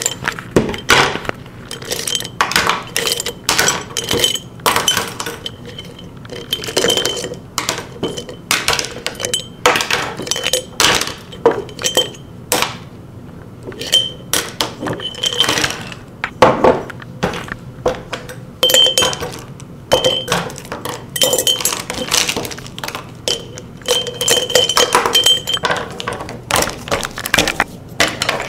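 Hard objects clinking and clattering against each other, several sharp hits a second without a steady rhythm, many with a brief high ringing after them.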